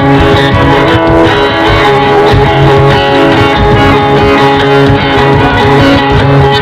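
Loud background music, continuous and unbroken.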